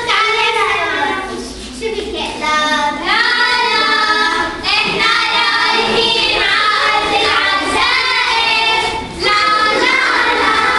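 A group of children's voices singing a song together.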